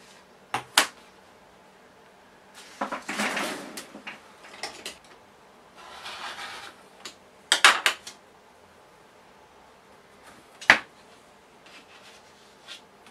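Rotary cutter drawn along an acrylic quilting ruler, cutting through quilted fabric and wadding in two rough scraping strokes, with sharp clacks of the ruler and cutter being set down on the cutting mat; the loudest clack comes near the end.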